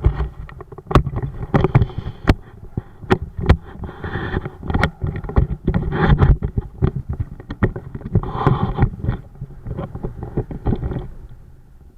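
Wind buffeting the microphone with a low rumble and many irregular knocks and thumps, dying down about eleven seconds in.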